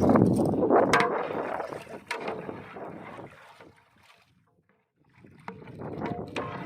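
Water sloshing in a large cooking pot with a few sharp knocks, over a low wind rumble on the microphone. It dies away almost to silence about two-thirds of the way through, then picks up again.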